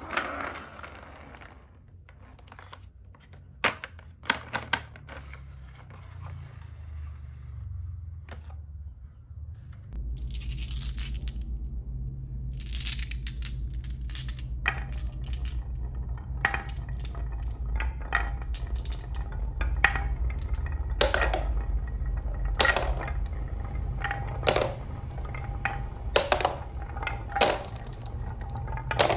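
Marbles dropped onto a wooden marble-run track and rolling down a carved zigzag groove, clacking against the wood and each other. The clicks are few at first and come thick and fast from about ten seconds in, over a steady low rolling rumble.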